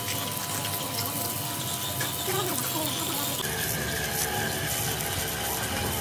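Running or spraying water, a steady rush of noise, which changes abruptly a little past halfway through.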